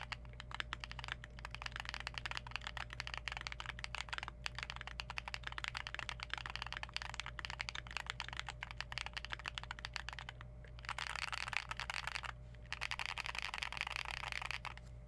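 Continuous typing on a Keychron Q1 aluminium gasket-mount keyboard with lubed Zaku/NK Cream frankenswitches and PBT keycaps: a quick, even run of keystroke clacks. It pauses twice briefly in the last few seconds and stops at the end.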